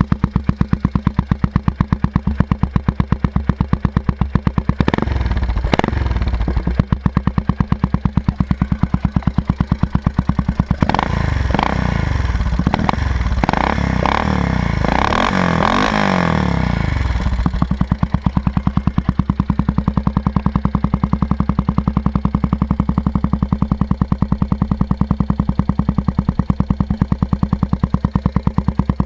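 Suzuki Savage LS650 single-cylinder engine, fitted with a Harley-Davidson carburettor and a Raask aftermarket exhaust, idling with regular exhaust pulses. It is blipped twice about five seconds in, revved up and down several times from about eleven to seventeen seconds, and then settles back to idle.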